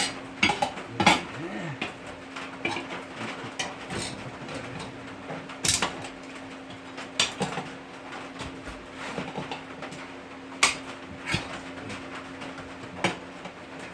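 Irregular metal clinks and knocks from working a lawnmower tire onto its rim on a homemade tire changer, with sharper knocks about one, six and eleven seconds in, over a steady low hum.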